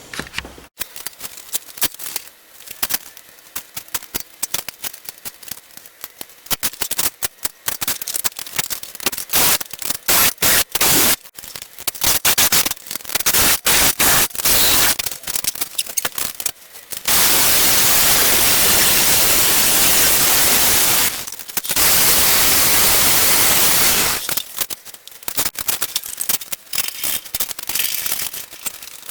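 Metal tabs being cut and fitted: a string of sharp clicks and knocks, and near the middle two long stretches of loud, even hissing from a cutting tool.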